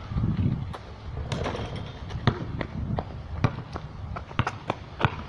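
A basketball bouncing on concrete pavement after a dunk attempt at a portable hoop: a run of sharp, irregular knocks starting about a second in, with a brief low rumble at the very start.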